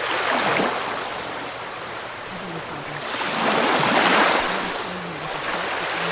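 Ocean waves washing ashore: a surge fades away early on, and the next wave swells to a peak about four seconds in, then falls away.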